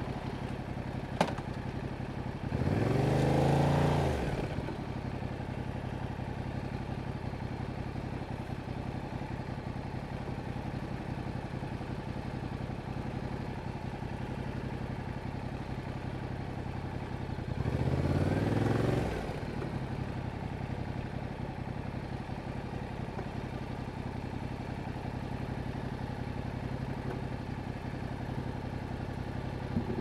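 A 2021 Yamaha MT-07's parallel-twin engine through its stock exhaust, idling steadily and revved twice in short throttle blips, each rising and falling back to idle, about fifteen seconds apart. A sharp click about a second in.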